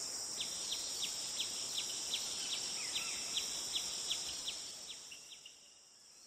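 Nature ambience from an animation soundtrack: a steady high insect drone with short, downward-sweeping bird chirps repeated about three times a second, fading out near the end.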